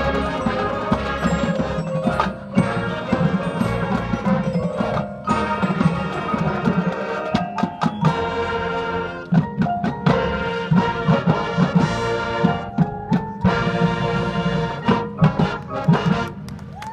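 Marching band playing its field show: brass chords over drums and mallet percussion, with frequent sharp drum accents.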